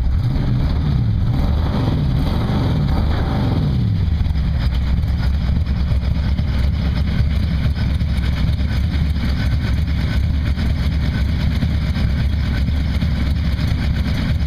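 '32 Ford hot rod's engine revved up and down several times in quick succession, then settling into a steady idle.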